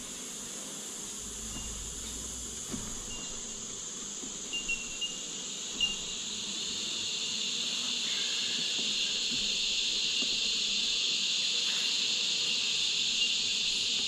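Steady high-pitched insect chorus, growing louder about six seconds in, with a few light knocks of wooden hive frames being handled in an open beehive.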